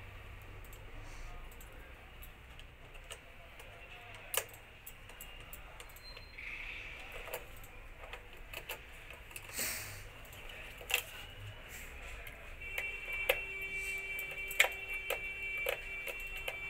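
Scattered small clicks and taps of a screwdriver and wire ends working at the terminal block of a photo beam sensor, a few of them sharper knocks. About three-quarters of the way in, a steady high-pitched tone starts and holds to the end.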